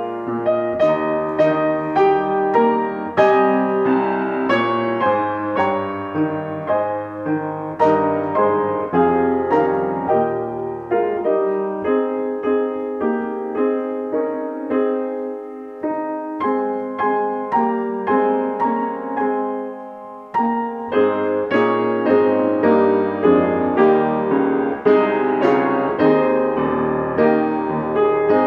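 Solo piano playing a slow, gentle piece, one struck note or chord after another, each ringing out; the low notes drop out for a while midway.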